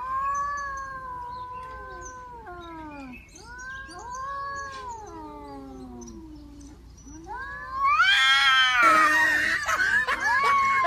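Two domestic cats, an orange tabby and a grey tabby, caterwauling at each other in a standoff: long wavering yowls that sag in pitch, one after another. About eight seconds in one lets out a much louder yowl that rises steeply and turns harsh and screechy.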